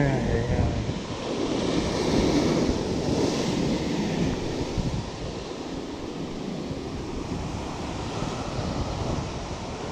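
Rough sea surf breaking and churning against coastal rocks, swelling louder a couple of seconds in, with wind buffeting the microphone.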